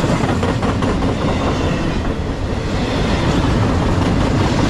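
Empty intermodal well cars of a freight train rolling past close by: a steady, loud rumble of steel wheels on rail, with repeated clicks as the wheels cross rail joints.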